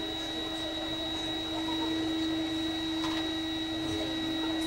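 A steady whine of fixed pitch, a lower hum with higher tones above it, over faint background noise from an outdoor crowd.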